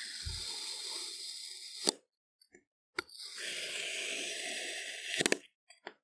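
Kitchen knife slicing through crunchy kinetic sand, a gritty, crackly crunch. There are two cuts, each ending in a sharp click.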